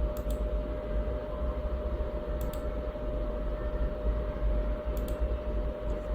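PC cooling fans running steadily while the Xeon E3-1245 v3 is under a full FPU stress test: an even whir with a constant hum. Faint double clicks come three times, about two and a half seconds apart.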